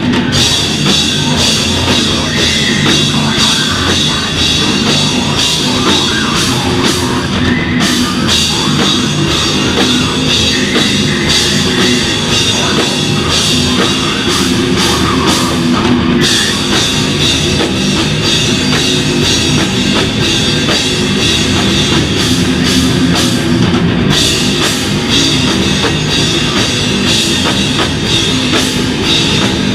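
Beatdown hardcore band playing live at full volume: heavily distorted guitars and a drum kit, with short breaks in the cymbals about every eight seconds.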